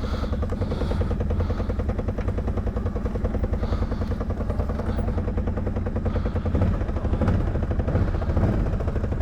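ATV engine running at low speed as the machine crawls along an off-camber trail, a steady pulsing rumble that picks up slightly about seven seconds in.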